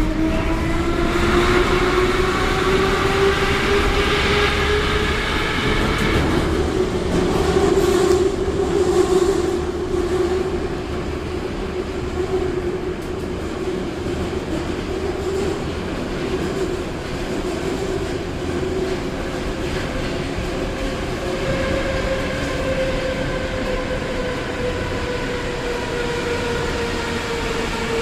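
Moscow metro 81-717/714 ('nomernoy') train heard from inside the car: the traction motors whine and rise in pitch over the first few seconds as the train gathers speed. The whine then levels off into a steady run through the tunnel over a continuous rumble of wheels on rail.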